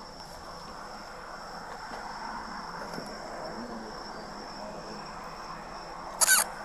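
Night insects trilling steadily in a high, even tone, with a short, loud knock about six seconds in.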